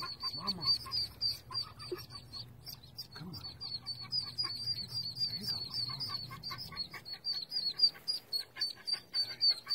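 Ducklings peeping, a rapid unbroken string of high cheeps several a second: the distress calls of ducklings trapped in a storm drain, away from their mother.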